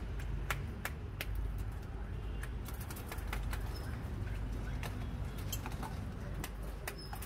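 Scattered sharp clicks and taps from glasses and utensils being handled at a drinks counter, over a steady low background rumble.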